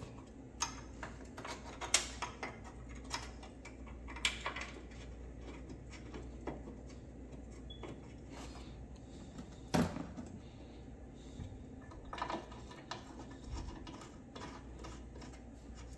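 Irregular metallic clinks and clicks of tools and bolts being handled while a new engine mount is fitted, the loudest about two seconds in and near ten seconds in.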